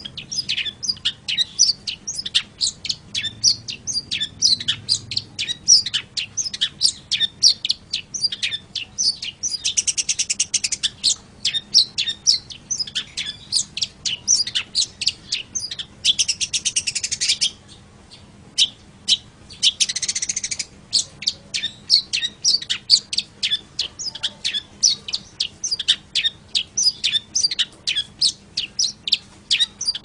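Long-tailed shrike (cendet) singing: a fast, continuous run of short, sharp chattering notes. There are harsher, rasping stretches about a third of the way in, around the middle and about two thirds in, and a short pause just after the middle one.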